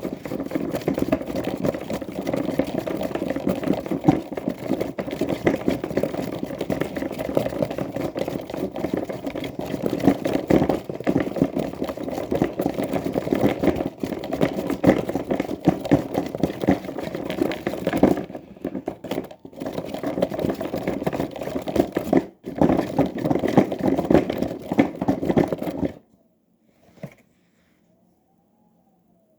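Washing machine running with water churning in the drum, a dense crackly sound with a couple of brief dips, cutting off suddenly near the end.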